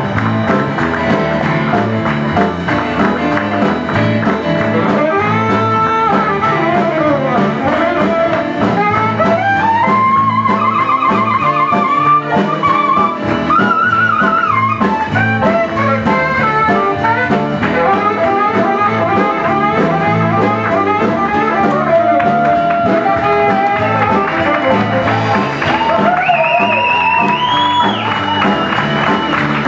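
Live band playing an instrumental jazz tune: a saxophone carries a wavering melody over acoustic guitar, bass guitar and drums keeping a steady beat.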